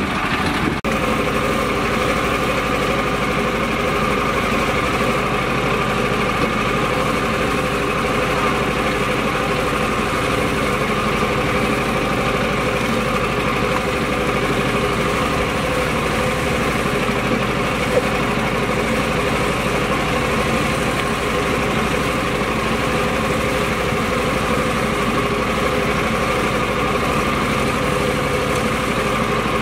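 A mini tractor's engine idling steadily, with an even, unchanging note.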